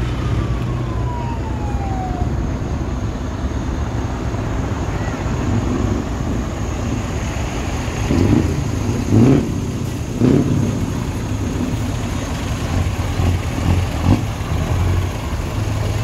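Scania truck engines rumbling as tractor units pull away at low speed. About halfway through come three quick revs, a second apart, and another short rev near the end.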